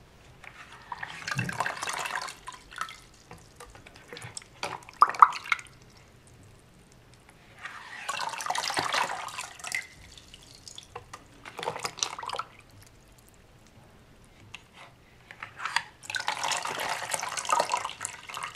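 Water poured and splashing into a small homemade plastic model toilet bowl in three bursts a few seconds apart, as a test of its flush, with drips and small clicks in between.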